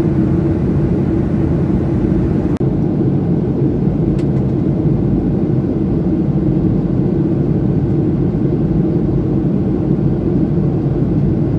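Steady cabin noise of a Boeing 737 airliner in flight heard inside the cabin: the low rush of its jet engines and the airflow. The noise drops out for a moment about two and a half seconds in.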